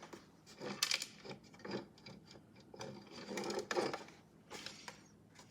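Plastic parts of a disassembled toy washing machine being handled and shifted, giving irregular clicks, knocks and rubbing.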